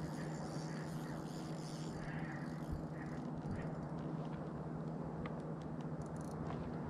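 Steady low motor hum, with a few faint clicks.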